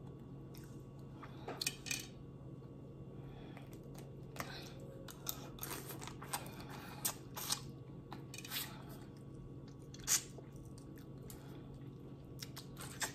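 Close-miked eating: chewing with irregular short wet smacks and crunches, the loudest about ten seconds in, over a faint steady low hum.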